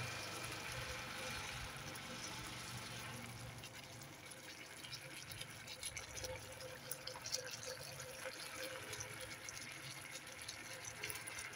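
Chicken-feet adobo in thick coconut-milk sauce simmering in a wok: a steady bubbling hiss, with small pops that grow more frequent from about four seconds in.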